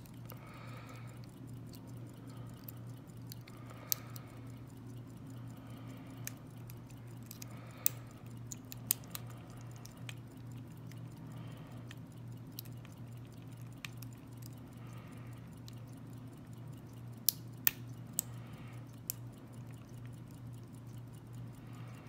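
Small metallic clicks and scrapes of a hook pick and tension wrench working the pins of a Master Lock lockout-tagout padlock, coming irregularly, a few sharper than the rest, over a steady low hum.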